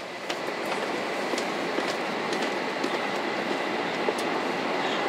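Cabin noise inside a moving 500 Series Shinkansen car: a steady rushing rumble, with a faint steady high tone and light, irregular clicks and rattles.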